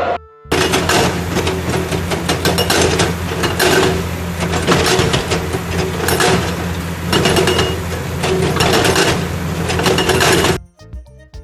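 Heavy machine running, a steady low engine hum with rapid, irregular clattering and hammering over it. It starts about half a second in and cuts off suddenly near the end.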